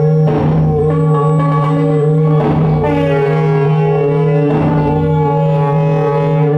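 Live experimental electronic music: a loud, steady drone on one low note with a stack of overtones, cut by a noisy percussive hit three times, about two seconds apart.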